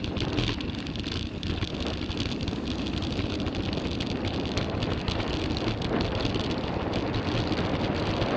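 Mountain bike rolling down a trail: steady wind rush over the camera microphone and tyre noise, with constant small rattles and knocks from the bike over the rough ground.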